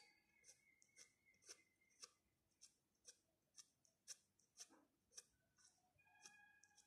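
Near silence with faint, evenly spaced clicks about twice a second.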